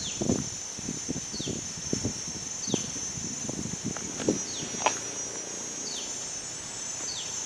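Outdoor insect chorus, a steady high buzz, with a short falling chirp repeated roughly every second and a bit, and scattered soft knocks and rustles of handling.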